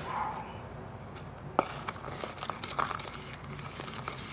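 Homemade toothpaste-and-salt slime squeezed and kneaded in the hands, giving small sticky clicks and crackles, with one sharper pop about a second and a half in. The clicking is weak.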